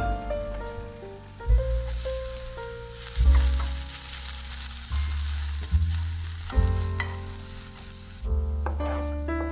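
Potato strips and diced green bell pepper sizzling in a hot frying pan while being stirred with a wooden spatula. The sizzle comes in about two seconds in and drops away near the end, over background music with a steady bass line.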